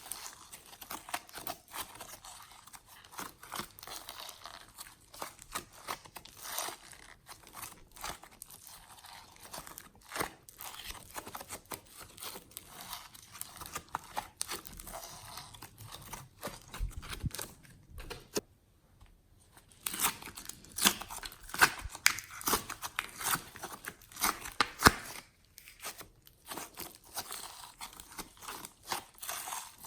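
Hands kneading and stretching glossy slime, giving a dense run of small sticky clicks and crackles. The sound pauses briefly just past halfway, then comes back louder for several seconds.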